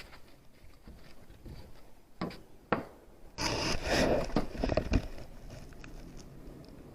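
Two sharp knocks, then a loud burst of scraping and rustling with several more knocks about halfway in, as the magnet and its catch are handled.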